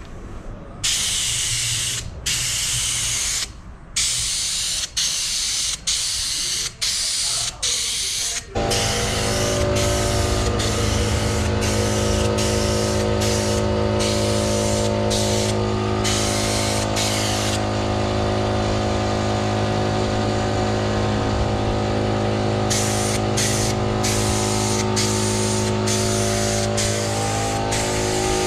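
Paint spraying in short hissing bursts, one pass after another, as engine tinware is sprayed matte black. About eight seconds in, a steady motor hum suddenly starts and keeps running under the continuing spray bursts.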